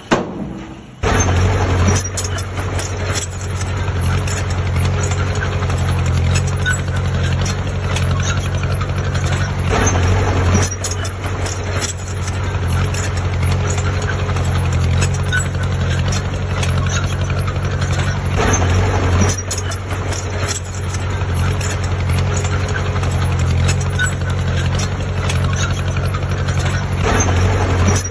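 Heavy diesel engine of an earthmoving machine running steadily under load, a deep even hum with occasional clanks, coming in suddenly about a second in.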